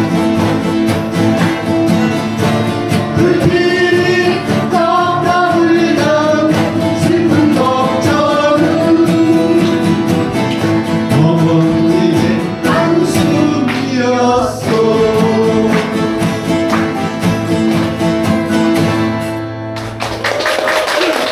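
A small ensemble of acoustic guitars strumming a song, with voices singing the melody into microphones from a few seconds in until past the middle, then the guitars playing on alone. The playing stops about a second before the end.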